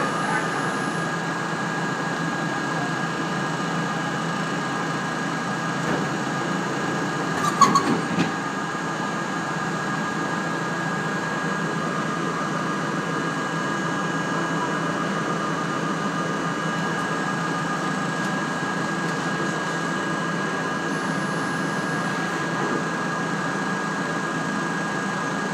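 An R32 subway car standing still at a station, its onboard equipment giving a steady hum with a constant high whine. One brief louder sound comes about eight seconds in.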